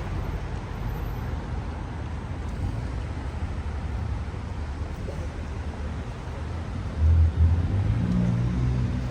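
Downtown street traffic: a steady low rumble of passing cars. About seven seconds in there are two short low thumps, and then a vehicle engine's low hum comes in.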